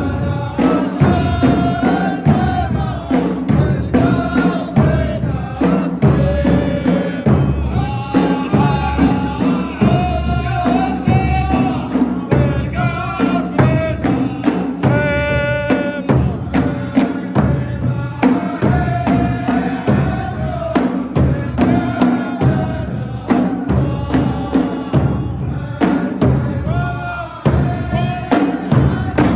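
Gulf folk song performed live by a folk troupe: sung voices holding and bending long notes over a steady, regular beat of drums.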